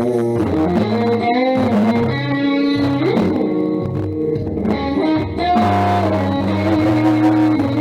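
Guitar music with held notes that slide in pitch over a steady bass line.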